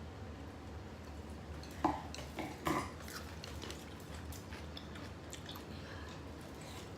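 Close-up eating sounds: chewing, with scattered small clicks and two louder brief knocks about two and three seconds in, over a low steady room hum.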